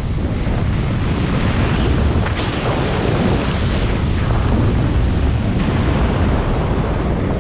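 Loud, steady rush of wind buffeting the microphone of a speedflyer's body-mounted camera during a fast, low glide on final approach.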